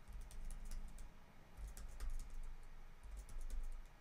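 Computer keyboard keys clicking in an irregular run of separate presses, as in repeated undo shortcuts, with dull low thuds underneath.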